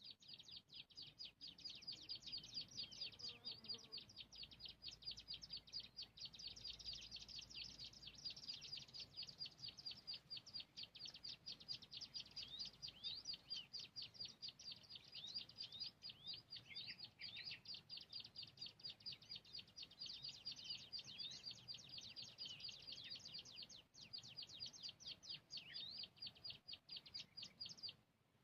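A small songbird's rapid, high chirping: short notes several a second, kept up without a break, with a few lower slurred notes in the middle.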